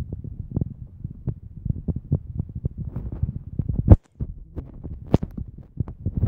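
Handling noise from a phone carried on foot: uneven low knocks and rubbing on the microphone, several a second, with a sharper knock just before four seconds in and a brief cut-out right after.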